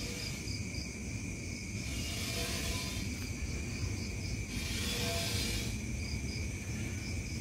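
Night insects and crickets trilling in a steady high drone, with a low rumble underneath. A harsh hiss swells up twice, about two seconds in and again about four and a half seconds in, each lasting about a second.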